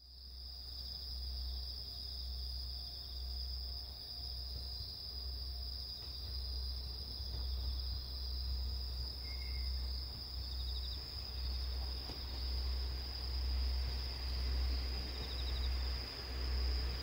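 Insects trilling steadily in one unbroken high-pitched tone, with a low rumble underneath.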